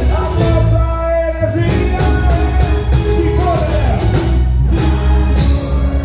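Live band playing a boi-bumbá toada with a lead singer over heavy bass and steady drum beats.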